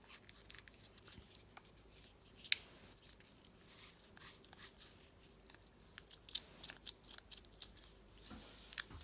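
Antsy Labs Fidget Cube being worked by hand: scattered sharp plastic clicks. One louder click comes about two and a half seconds in, and a quick run of clicks follows between about six and seven and a half seconds.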